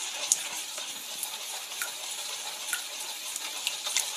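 Hand mixing melted butter, icing sugar and egg yolk in a bowl: a steady wet hiss with scattered small clicks.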